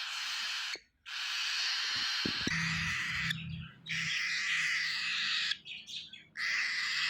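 Baby cockatiel begging for food with a string of long, raspy calls, each lasting one to two seconds, with short breaks between them.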